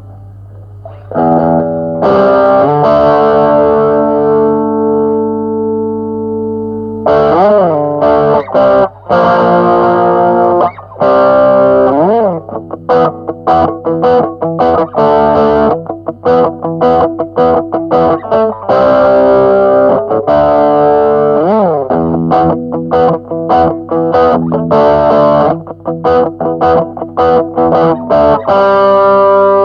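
Electric guitar, a Jackson JS22 on its bridge pickup, played through a small battery-powered Joyo MA10E amp on its overdrive channel with no effects: distorted chords that ring out at first, several string bends, then quick choppy strummed stabs. A steady low amp hum sits underneath.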